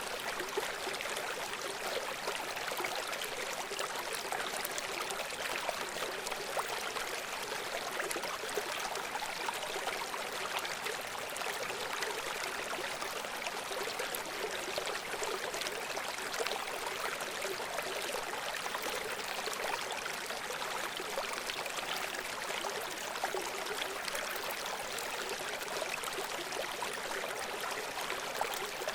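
A river running over rocks: a steady rush of flowing water with fine splashing and gurgling throughout.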